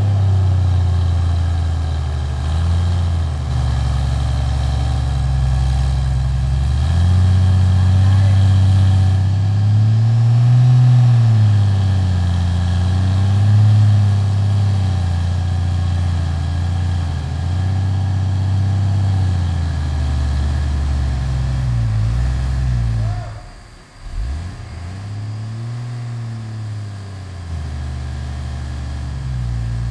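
An off-road jeep's engine is revving under load as it climbs a steep rocky dirt slope, its pitch rising and falling again and again. The sound drops out sharply for a moment about three-quarters of the way through.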